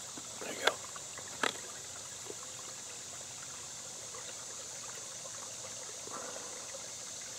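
A shallow woodland stream trickling gently over rocks, under a steady high hiss of cicadas. Two brief clicks about a second apart near the start.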